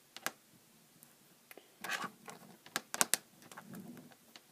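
Scattered small clicks and brief rustles of hands handling small screws and hard plastic kit parts while searching for the right screw, with a quick cluster of sharper clicks about three seconds in.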